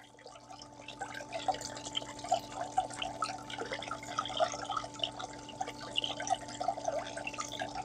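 Water gurgling and dripping in a Goldbox gold concentrator as low-pressure jets wash heavy black sand through its tray, over the steady hum of the small water pump. The splashing picks up about a second in.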